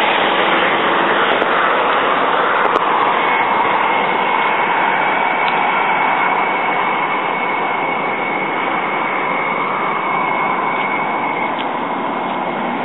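Steady roar of road traffic passing on the adjacent road, slowly easing, with a thin high steady whine running through most of it.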